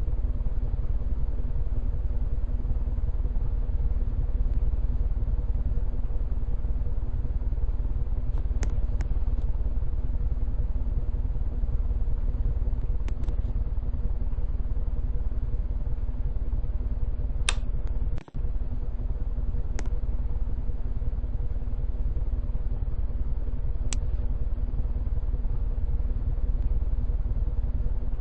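Hunter Second Century 52-inch ceiling fan running steadily: an even motor hum and rush of air with a low rumble, broken by a few faint clicks and one brief dropout just past the middle.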